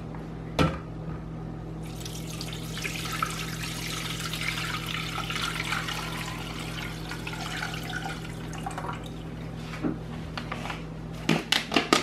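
Water poured from a glass measuring cup into a plastic food processor bowl: a steady splashing pour that starts about two seconds in and fades out after several seconds. A sharp knock of the cup near the start, and a few light clicks near the end.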